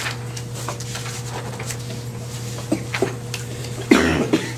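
A single cough about four seconds in, over a steady low hum, with a few faint clicks a little before it.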